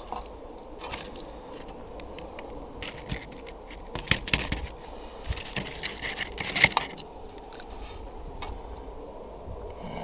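A slotted spatula scraping in a frying pan and hard taco shells crackling as fish filling is spooned into them, with scattered sharp clicks and taps.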